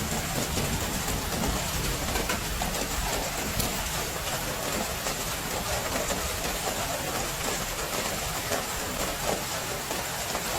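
Heavy rain falling steadily: an even hiss dotted with many small drop ticks.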